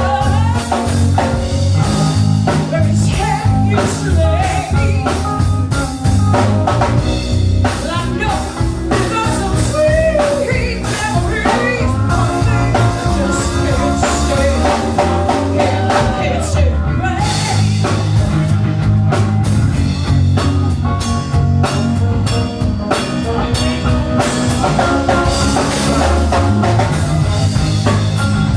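Blues-rock band music with a lead singer over drum kit and bass.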